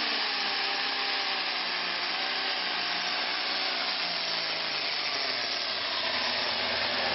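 Turbocharged diesel pulling tractor running flat out under full load as it drags a weight-transfer sled, a loud, steady, harsh engine noise.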